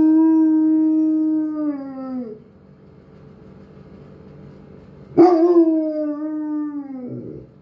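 Doberman howling: a long, steady howl that slides down in pitch and dies away about two seconds in, then after a pause a second, shorter howl that starts sharply about five seconds in and falls away.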